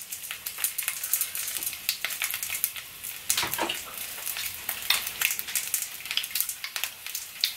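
Halved green bell peppers sizzling in a hot frying pan, a steady hiss broken by frequent small crackling pops.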